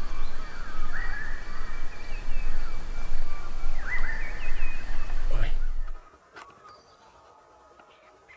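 Bush ambience: a steady low rumble with bird calls, two long level whistled notes and a few short chirps. About six seconds in it cuts to near quiet with a few faint clicks.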